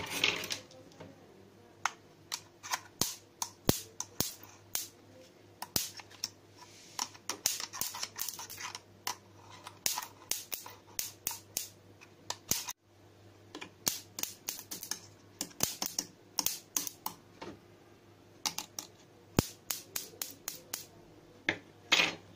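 Homemade stun gun's nail electrodes snapping with high-voltage sparks as scissors are held to them: sharp crackling clicks coming irregularly, several a second in clusters with short pauses.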